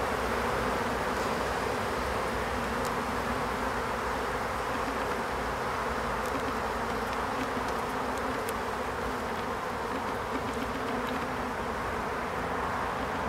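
Honeybees of an opened colony buzzing steadily over the exposed frames of the hive, with a few faint clicks.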